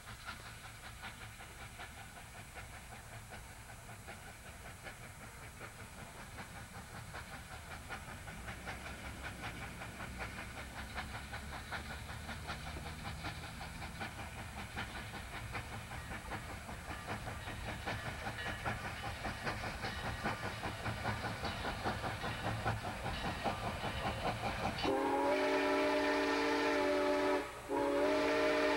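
Southern Pacific 786, a 2-8-2 Mikado steam locomotive, approaching under steam, its exhaust chuffing and growing steadily louder. About 25 seconds in, its steam whistle blows a loud blast of several notes at once, stops briefly, and starts a second blast near the end.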